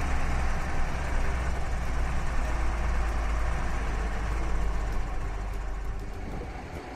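Truck engine running steadily with a deep drone and rumbling, fading away near the end.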